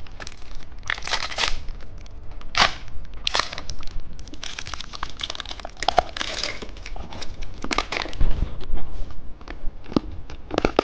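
Plastic candy packaging crinkling and crackling in irregular rustles, with a few sharp crackles, as the wrapper is handled and torn open.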